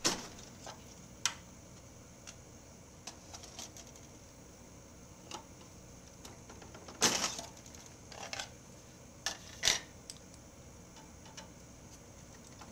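Pliers clicking and scraping against circuit cards and the metal card cage as cards corroded in place are worked loose, in scattered sharp clicks with louder scrapes about 7 seconds in and near 10 seconds.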